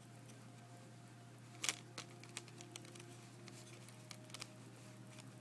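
Light clicks and taps of plastic Blu-ray disc cases being handled, with one sharper snap a little under two seconds in, over a faint steady low hum.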